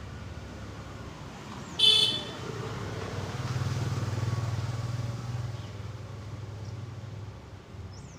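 A short, sharp horn toot about two seconds in, followed by a low vehicle engine hum that swells and then fades away.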